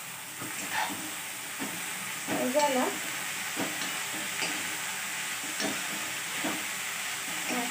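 A metal spatula scrapes and knocks against a metal kadhai while cut cluster beans and chopped onion are stirred and fried in hot oil. A steady sizzle runs underneath, and the scrapes come about once a second. The loudest scrape, with a brief metallic ring, comes between two and three seconds in.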